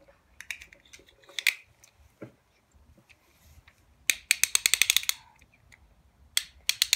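Small hard plastic clicks from Beyblade tops and launchers being handled, a few single clicks and then a quick ratcheting run of about ten clicks a second lasting about a second, about four seconds in.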